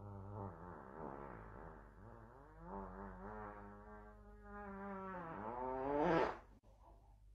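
A long, drawn-out fart, buzzy and wavering in pitch, that grows louder toward its end and then cuts off about six seconds in.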